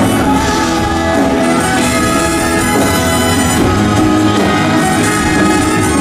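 Live band playing a slow folk-rock song: strummed acoustic guitar with violin over steady bass and drums.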